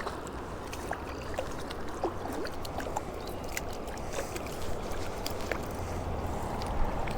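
Creek water sloshing and trickling, with many small splashes and clicks scattered through it.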